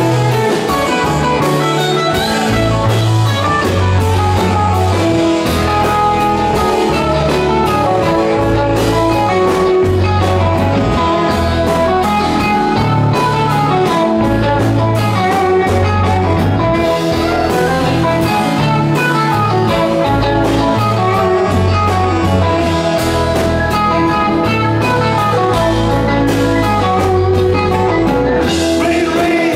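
Live rock band playing an instrumental passage: electric guitars over bass guitar and drums.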